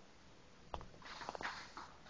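Faint footsteps and a few small clicks with light rustling as someone walks with a handheld camera, starting about a second in after a quiet moment.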